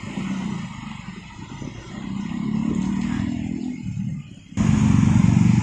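Motor-vehicle traffic: car and motorbike engines running at low speed. About four and a half seconds in, it suddenly gets louder with the fast pulsing of a close motorbike engine.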